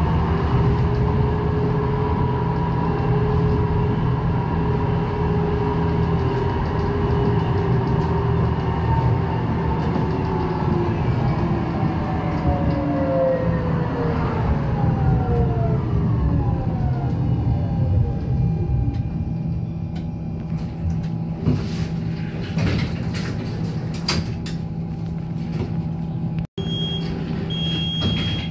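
Düwag MGT6D low-floor tram running, its traction drive giving a steady multi-tone whine that glides smoothly down in pitch as the tram brakes toward a stop. Then it settles to a lower hum with scattered clicks and knocks, and short high beeps near the end.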